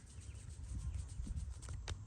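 Hands working over the head and back in a massage: a quick run of dull, soft thumps, with a couple of sharp clicks near the end.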